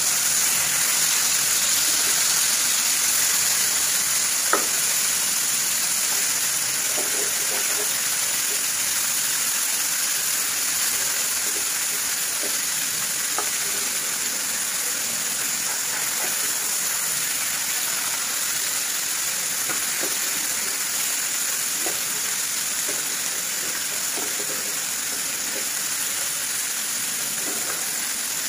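Rohu (rui) fish steaks shallow-frying in hot oil in a kadai, a steady sizzle, with a few light clicks of the metal spatula and tongs on the pan as the pieces are turned.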